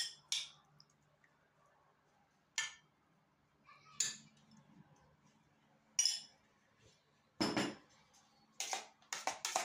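Metal spoon clinking and scraping against a glass bowl and a glass baking dish as pieces of marinated meat are spooned across, in single sharp clinks a second or two apart. About seven and a half seconds in there is a heavier knock, and near the end a quicker run of clinks and scrapes.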